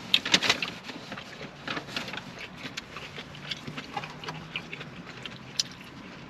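Close-up eating sounds: a person chewing a burger, with a run of short wet mouth clicks and smacks, a cluster of sharper ones about half a second in.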